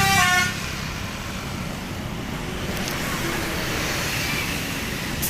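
A bus's telolet basuri horn finishes playing its stepped multi-note tune about half a second in and cuts off, leaving steady road and traffic noise, with a sharp click near the end.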